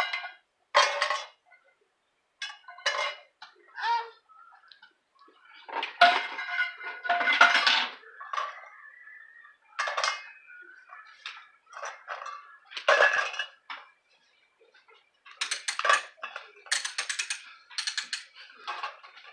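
Toy pots, pans and pretend play food clattering and clinking as they are handled in a play kitchen, in irregular bursts with a busy run near the end.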